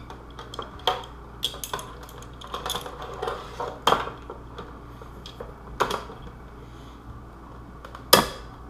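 A clamp being fitted onto a glued part: a scattering of sharp clicks and knocks from the clamp and the piece being handled, the loudest knock near the end.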